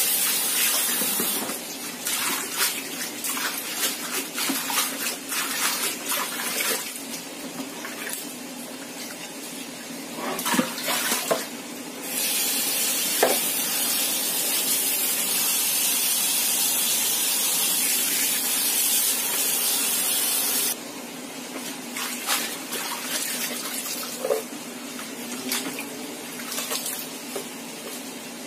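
Tap water running and splashing as cut water spinach is washed by hand in several rinses. The tap runs briefly at the start and again steadily from about 12 to 21 seconds in, with sloshing and knocks of the leaves being handled in water between.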